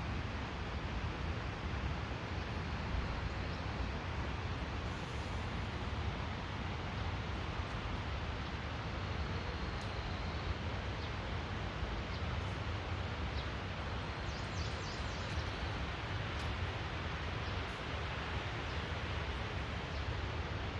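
Steady rushing noise, with a few faint high chirps about two-thirds of the way through.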